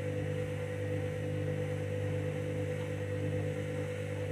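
Candy washing machine running its main wash on a full load of bedding: a steady motor hum with a low drone and a fainter higher tone, even throughout.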